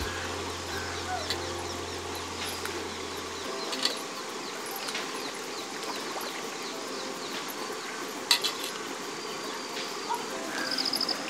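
Small birds chirping, with a short trill near the end, over outdoor ambience. A few sharp knocks, about four and eight seconds in, come as ash gourd pieces are put by hand into an aluminium pot of water, and a low hum cuts out after about three and a half seconds.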